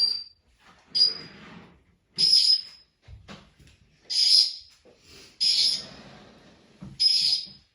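African grey parrot making a series of six short, high-pitched squeaks, a second or two apart.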